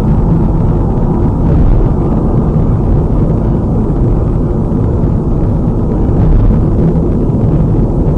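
Steady, loud low rumble of tyre and engine noise inside a car's cabin cruising at highway speed, heard through a dashcam's microphone.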